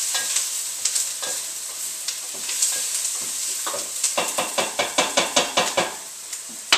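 Food frying in a pan on a stovetop, a steady sizzle, with a utensil stirring and scraping the pan; from about four seconds in the strokes come fast, about five a second, and a single sharp knock sounds near the end.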